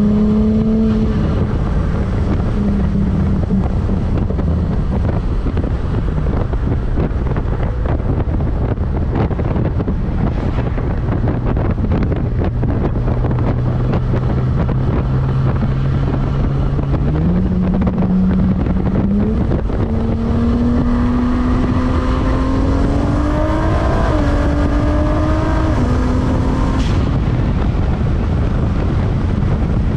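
Cadillac ATS-V's twin-turbo V6, breathing through a carbon fiber cold air intake, running at road speed under heavy wind and road noise. Its note holds low and steady for a while, climbs steadily as the car accelerates in the second half, then drops away near the end.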